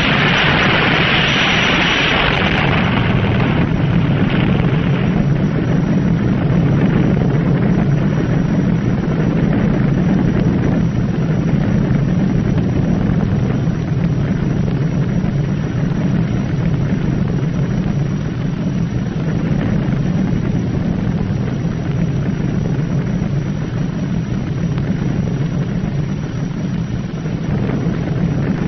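Underwater nuclear explosion sound effect: a hissing roar that dies away over the first few seconds, leaving a long, steady, deep rumble.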